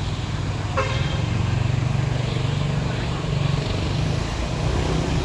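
City street traffic: vehicle engines running with a steady low rumble over general road noise, and a short higher-pitched sound about a second in.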